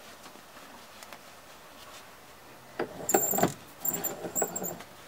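Handling noise and short high squeaks as a towel-wrapped 9mm pistol barrel is clamped in a bench vise. They come in two bursts, about three and four seconds in, after a quiet start.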